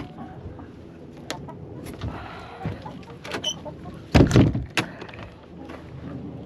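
Scattered clicks and knocks of hands working through a chicken coop's nest boxes while collecting eggs, with one louder clatter about four seconds in.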